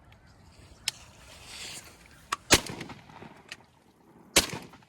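Two shotgun shots about two seconds apart, the second near the end, with a few fainter sharp clicks around them.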